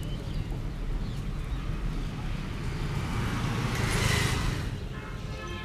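A passing vehicle: its noise swells, peaks about four seconds in and fades over a second or so, over a steady low rumble.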